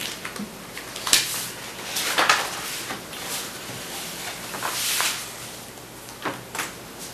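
Papers and pens being handled on a table: a handful of short, sharp rustles and knocks, with a longer paper rustle about five seconds in.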